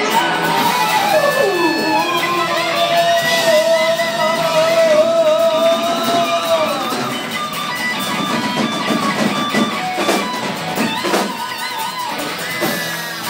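Live band playing a rock song: a lead electric guitar holds wavering notes with string bends, including a long downward slide about a second in, over strummed guitars, with sharp drum hits near the end.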